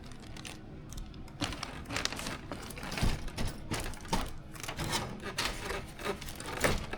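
Rustling and light clicking as small plastic kit parts and their packaging are handled and fitted together.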